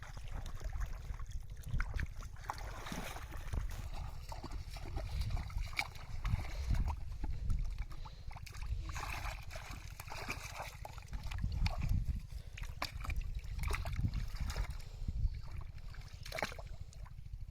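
Water sloshing and splashing in irregular bursts as hands move through shallow water, over a steady low rumble.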